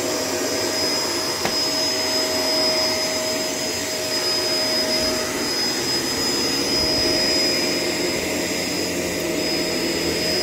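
Shark LA702 Lift-Away upright vacuum cleaner running steadily: an even motor whine over the rush of suction.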